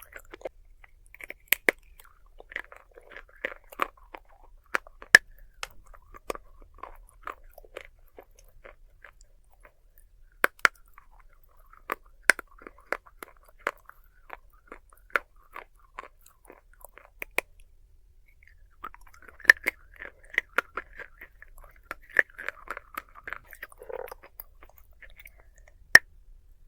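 A person biting and chewing dry red clay close to the microphone: irregular soft crunches and sharp crackles, some loud single snaps, with quieter chewing between.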